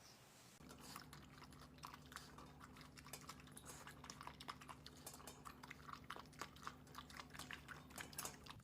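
Quick, irregular clicks or crunches, several a second, over a steady low hum. Both start about half a second in.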